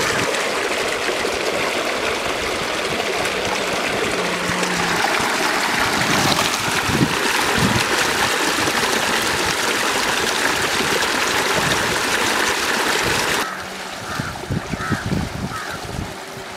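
Steady rush of water flowing in a small stream channel. Near the end it drops abruptly to a quieter background with a few faint short chirps.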